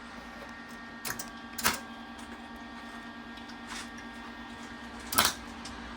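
Welding machine humming steadily while switched on, with three sharp clicks, about one and two seconds in and again near the end.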